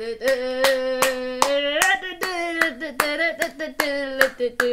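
A voice humming a circus-style tune in long, gliding notes, with hand claps keeping time about two to three times a second.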